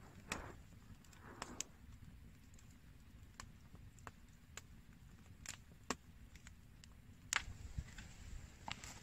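Scattered sharp clicks and light snaps, about ten at irregular intervals, over a faint low rumble.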